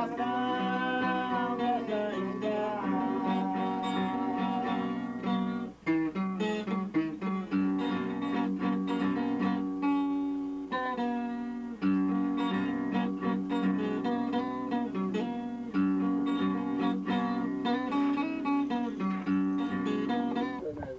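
A man singing to an acoustic guitar, with a short break in the music about six seconds in.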